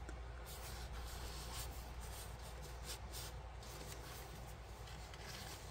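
Soft paper rustling and sliding as the pages and tucked journal cards of a handmade junk journal are handled and turned.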